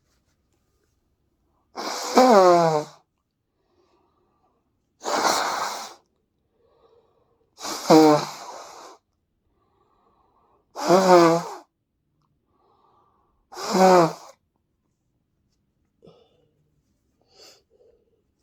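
A person blowing their nose hard five times, about three seconds apart. Each blow is a honk lasting about a second that falls in pitch; the second one is breathier, with less tone.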